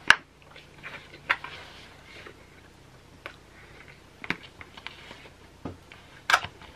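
Close-up eating sounds: chewing with lip smacks, broken by a handful of short, sharp clicks at irregular gaps of about a second, the loudest near the end.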